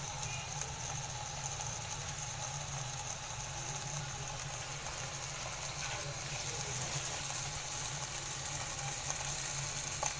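Marinated chicken pieces sizzling faintly in a hot non-stick pan, over a steady low hum, with a light tick or two from the pieces being moved.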